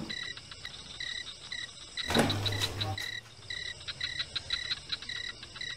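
Crickets chirping steadily, short high chirps about two to three a second. About two seconds in, a brief low hum with a whoosh, the loudest moment.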